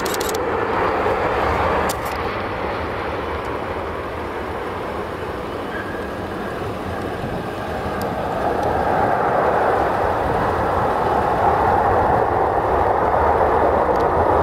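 Jet airliner's twin rear-mounted engines with a steady rushing noise as the plane rolls out on the runway after touchdown, growing louder about halfway through.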